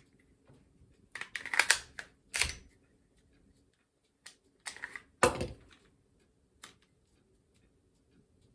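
Ruger Security 9 pistol being worked by hand: a series of sharp metallic clicks and clacks as the slide and slide stop are operated, the loudest clack about five seconds in.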